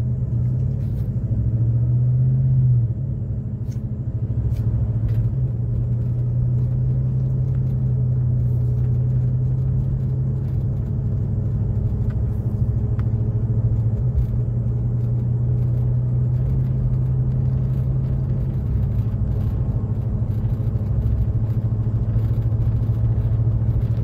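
Cabin sound of a 2012 Chevrolet Avalanche's V8 engine and drivetrain under way, a steady low hum that is a little louder for the first three seconds, as the truck gathers speed at low revs. This is the speed range where the owner feels a shudder or surging that he suspects comes from a failing torque converter.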